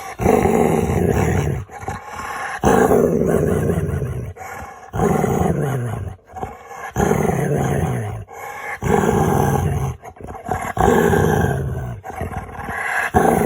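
Dog making long, grumbling, howl-like vocal noises, about six in a row with short breaks between them, each one sliding down in pitch.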